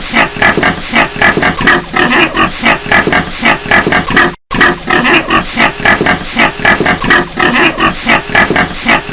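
Several pigs in a pigsty calling over one another in quick succession, about three or four loud calls a second. The sound cuts out completely for a moment about four and a half seconds in, then resumes.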